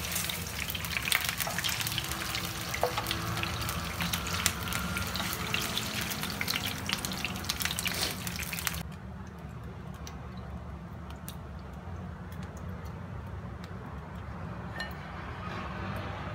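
Chicken pieces frying in oil in a nonstick pan: a steady sizzle full of crackles, with clicks and scrapes of a spatula lifting pieces onto a plate. About nine seconds in the sizzle cuts off suddenly, leaving a low steady hum and a few faint clicks.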